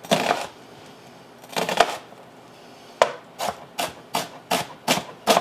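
Chef's knife chopping a sweet onion on a plastic cutting board: two separate cuts, then from about three seconds in a quick run of strokes, roughly three a second.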